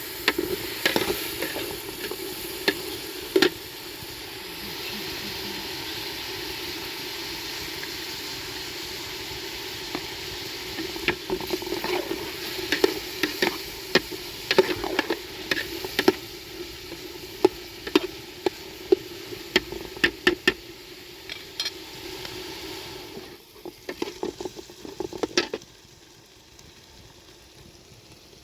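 Food sizzling as it fries in a pan, with repeated clicks and scrapes of a utensil stirring it. The sizzling and stirring stop near the end.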